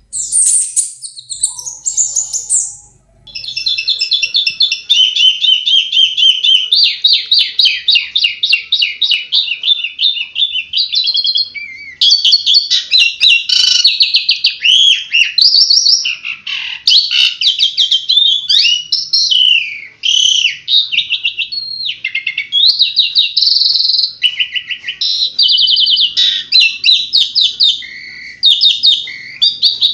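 Songbird singing a loud, fast, varied song of rapid trills and sharp chirps, with a brief pause about three seconds in. The song changes to a more broken run of quick notes and slurred whistles about twelve seconds in.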